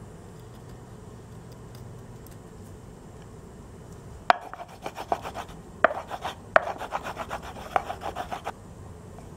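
Wooden pestle knocking and grinding nutmeg in a wooden mortar: a few sharp knocks with rapid rubbing strokes between them, starting about four seconds in and stopping about a second before the end.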